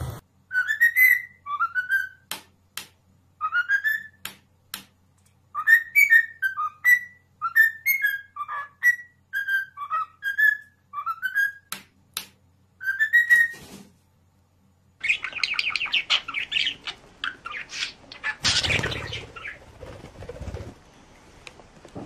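A parrot whistling a tune: a run of short whistled notes sliding up and down, with sharp clicks between them, stopping about 14 seconds in. After a brief gap comes harsher, noisier bird chatter with one louder burst partway through.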